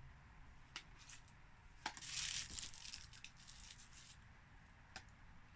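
Plastic wrapping of an LOL Surprise blind-bag toy package being torn open and crinkled by hand. A crackling burst comes about two seconds in, with a few sharp clicks before and after it.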